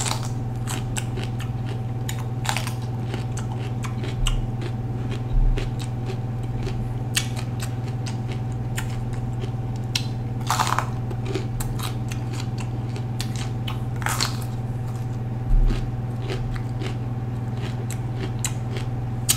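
Crisp crunching of a raw green bell pepper being bitten into and chewed, with irregular crackles and a few louder crunches. A steady low hum runs underneath.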